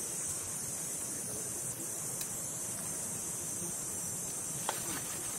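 Steady high-pitched drone of forest insects, with a single faint click near the end.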